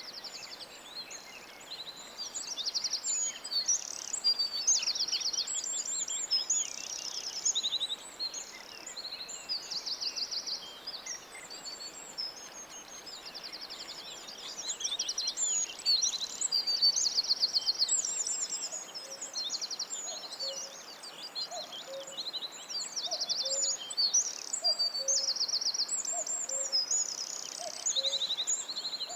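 Chorus of several songbirds overlapping, with high chirps, trills and warbling phrases. From about two-thirds of the way in, a short, low call note repeats about once a second beneath the songs.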